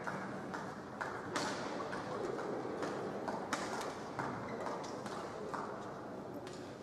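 Badminton hall background: a steady murmur with scattered sharp taps and pings, typical of rackets hitting shuttlecocks and shoes on court floors at neighbouring courts.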